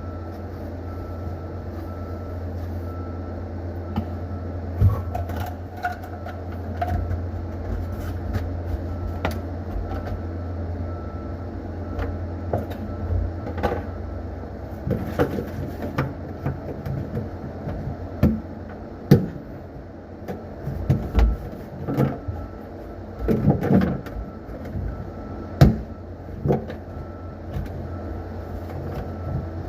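A steady low hum with scattered knocks, clicks and clatter of objects being handled, coming more often in the second half.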